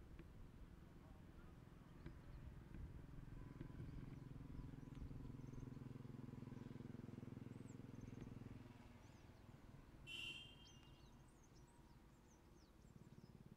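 Quiet outdoor ambience: faint bird chirps, over a low steady hum that fades out about nine seconds in, with one brief, sharper call about ten seconds in.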